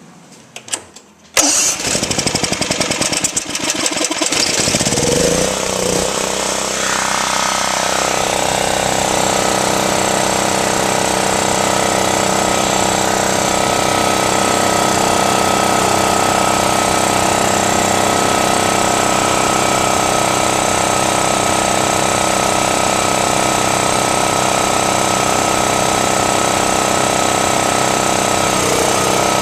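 Generac XG8000E portable generator's single-cylinder engine cranked over for about three seconds, catching, speeding up and settling into a steady run.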